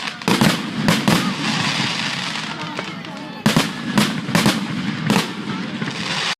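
Fireworks going off: sharp bangs in two clusters, a few about a third of a second to a second in and another run from about three and a half to five seconds in, over a steady hiss and crackle.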